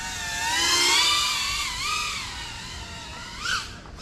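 FPV quadcopter's electric motors whining, the pitch rising and falling as the throttle is worked, loudest about a second in. A short sharp burst of whine comes near the end.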